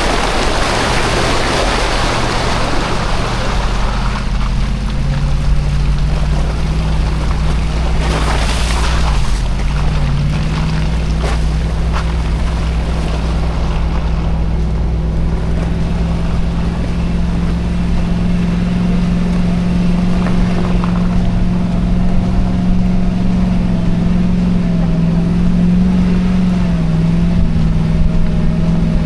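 Lexus GX470 on Nitto Mud Grappler mud-terrain tyres being driven, heard as a steady low drone of V8 engine and tyres. The pitch dips briefly about nine seconds in and then holds. There is a rougher hiss in the first few seconds.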